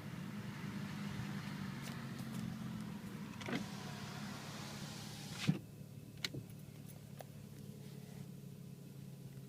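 BMW 335i twin-turbo inline-six running steadily with a hiss over it. About five and a half seconds in a sharp click comes and the hiss drops away, leaving the engine hum, followed by a couple of lighter clicks.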